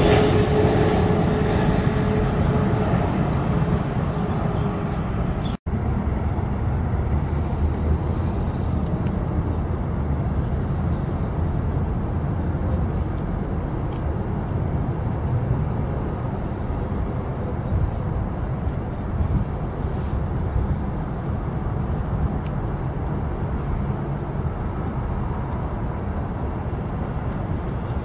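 Jet airliner engines. First a low-flying Boeing 777 on approach passes with a loud rush and a steady high whine that fades. Then, after a brief break about six seconds in, a steadier, quieter rumble of jet engines comes from across the airfield.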